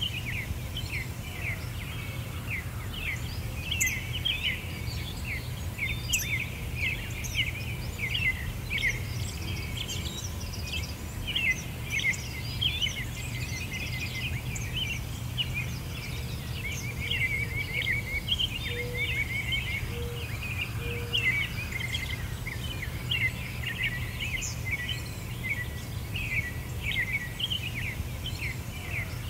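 A dense chorus of small birds chirping without pause, many quick overlapping chirps, over a steady low hum.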